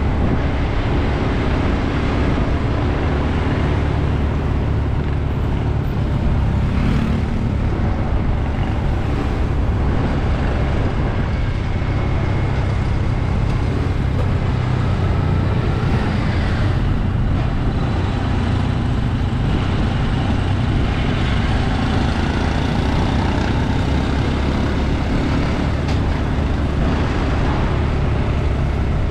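Steady city road traffic heard from a moving bike: vehicles running along the street, with a constant low rumble.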